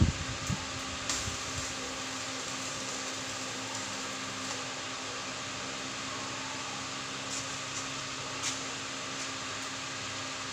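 Steady hum of a running machine's fan, with a couple of faint clicks: one about a second in and another late on.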